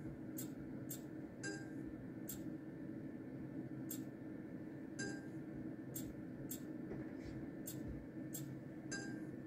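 Merkur Multi roulette gaming machine giving short clinking chip sounds, about a dozen at irregular intervals, as bets are tapped onto its touchscreen table. A steady low hum runs underneath.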